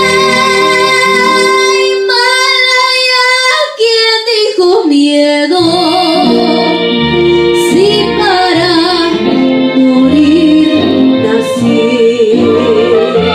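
A woman sings into a handheld microphone through a PA speaker, over a recorded music backing track. The bass of the accompaniment drops out from about two to five and a half seconds in while her voice slides through a run of notes, then the beat comes back under a held, wavering note.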